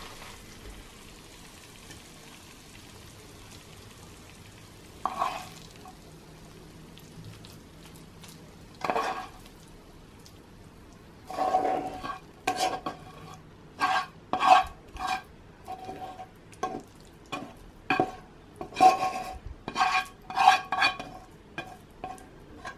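Metal tongs clinking and scraping against a frying pan as noodles and vegetables are lifted out and dropped onto a stoneware plate. A few scattered clatters at first, then a quick run of them in the second half.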